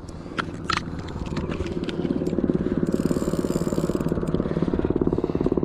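A motor running with a fast, even pulse, growing louder about two seconds in.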